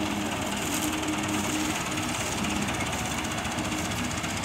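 Diesel farm tractor engines running steadily as tractors hitched in a chain tow a heavily loaded sugarcane trolley.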